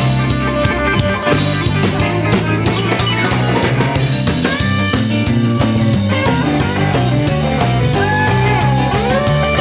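Live band playing rock music, with drum kit, bass, keyboards and guitar.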